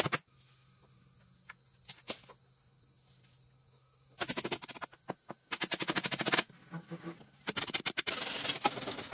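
Claw hammers driving nails into thin wooden roof slats on a pole frame, in three quick runs of sharp, rapid blows starting about four seconds in, with a steady high insect buzz underneath.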